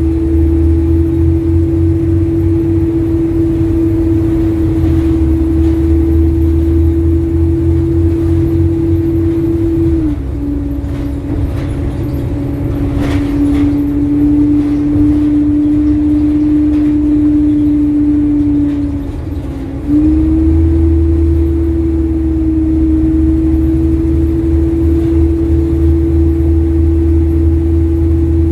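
Bus diesel engine running under way with a steady whine over a low rumble. The rumble eases and the whine drops a little about a third of the way through, then both pick up again about two thirds through. The engine carries the ticking of a failed exhaust manifold, as the uploader reports.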